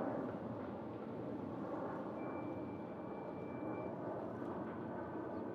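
A Boeing 787-8's GEnx-1B turbofan engines heard from the ground as a steady jet rumble while the airliner climbs out after takeoff, easing off slightly. A faint thin high tone sounds briefly in the middle.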